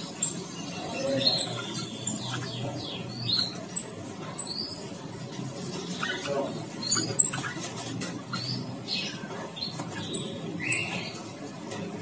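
Caged songbirds chirping and calling in short, scattered high notes and quick sweeping whistles, with light clicks and fluttering as they hop and move about the wire cages. A steady low hum lies underneath.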